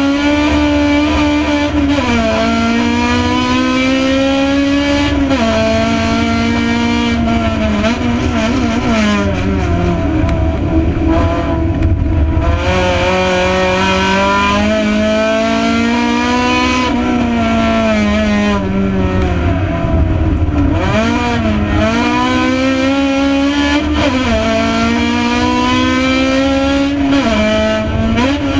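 Race car's engine heard from inside the cockpit at racing speed, loud throughout, its revs repeatedly climbing and then dropping sharply.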